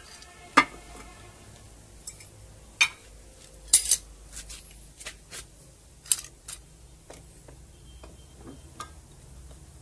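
Sharp metallic clanks and clinks, about half a dozen irregular hits. The loudest comes about half a second in and rings briefly. A homemade steel bar clamp and its parts are being handled and knocked against a workbench.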